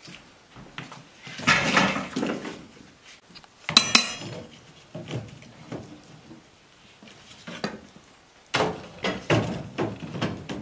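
Split firewood sticks clattering and knocking as they are fed into a cast-iron wood stove's firebox, in irregular bunches of knocks, with one sharp ringing clank about four seconds in.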